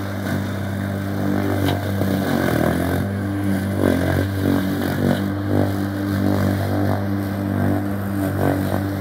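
Rank 5 hp lawn mower engine running steadily, its note sagging briefly about two and a half seconds in and wavering a few times after.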